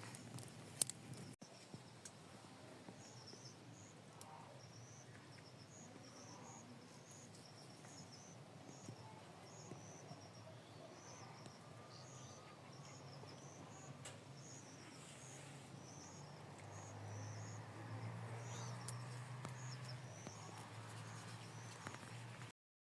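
Quiet rural outdoor ambience: a small animal's high, short chirp repeats about every two-thirds of a second over a faint low hum that grows louder in the second half. A few clicks come in the first second or so, and the sound cuts off abruptly near the end.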